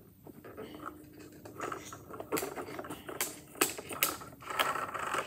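Light clicks and knocks of a small wooden model crane's wooden and plastic parts being handled as its string spool is worked, with several sharp clicks in the second half.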